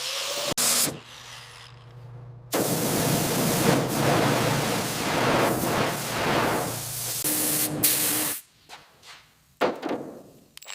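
A steady, loud hiss of compressed air, starting sharply about two and a half seconds in and cutting off after about six seconds. Shorter pieces of workshop noise come before and after it.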